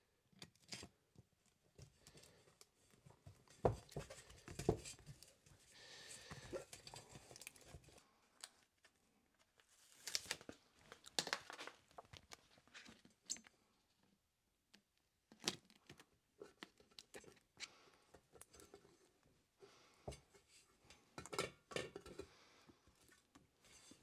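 Plastic protective film being handled, torn and pressed over the ends of steel roller drums: faint, scattered crinkling and tearing rustles with occasional sharp taps.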